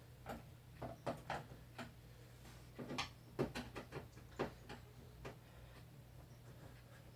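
Irregular small clicks and taps of a screwdriver and screws on the plastic case of an electronic keyboard being taken apart, thick for the first five seconds and then sparse, over a faint steady low hum.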